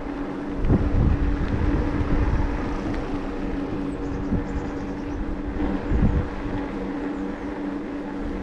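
Riding noise of a Decathlon Rockrider e-bike: the electric motor whining at a steady pitch over tyre rumble, with gusts of wind buffeting the microphone about a second in and again near six seconds.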